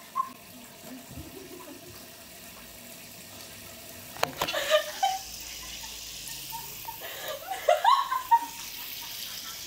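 Tap water running into a kitchen sink, a steady hiss, with a sharp knock about four seconds in.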